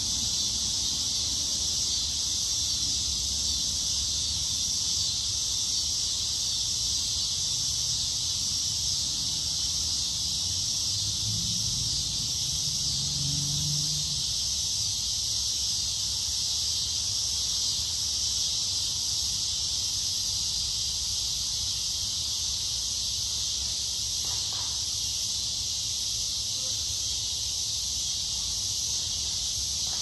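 Loud, steady chorus of summer insects, a continuous high-pitched buzzing drone that never breaks. A faint low rumble lies underneath and swells briefly around the middle.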